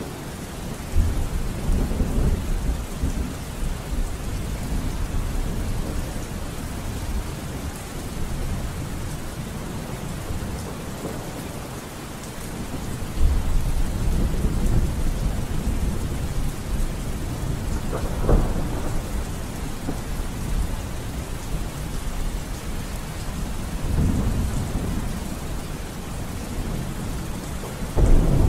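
Steady rain with rumbles of thunder that swell up several times, the loudest near the end.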